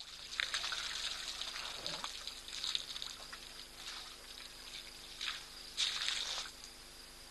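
Elephants drinking at a waterhole: water splashing and trickling in irregular bursts as their trunks draw it up and pour it out, with the loudest splash about six seconds in.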